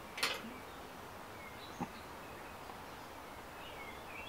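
Quiet outdoor background with a short rustle just after the start and a single light click near two seconds, from hands and scissors working a washed root ball. Faint bird chirps sound in the background.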